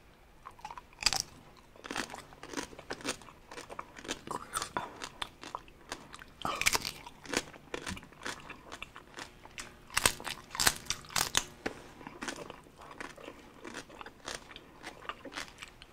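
Crisp roasted pig skin (lechon) being bitten and chewed: repeated sharp, irregular crunches, loudest just after the first bite and again about two-thirds of the way through.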